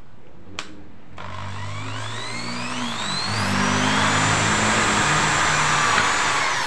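AEG SB 500 RE 500-watt impact drill's motor starting up about a second in, its whine rising in pitch as it speeds up over two or three seconds, then running steadily at full speed. A single click comes just before it starts.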